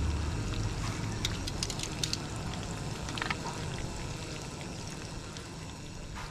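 Pork bacon sizzling in a small frying pan, an even hiss with scattered pops of spitting fat, gradually fading out.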